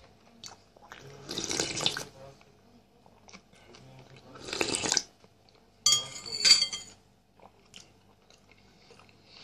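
Soup slurped off a spoon: three short wet slurps a few seconds apart, the last one sharper with a whistling hiss.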